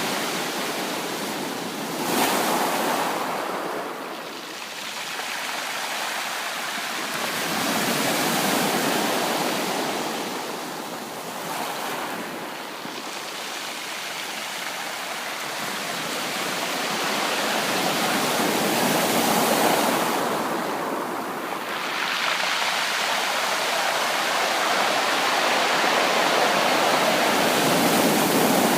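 Sea waves breaking and washing up the shore, the surf swelling and fading every several seconds, with a sharper break about two seconds in.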